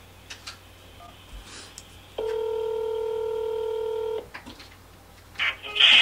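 A telephone ringing tone heard through a phone's speaker: one steady two-second tone starting about two seconds in, with faint line clicks before and after it. It is the call ringing through to the station after the call-in prompt.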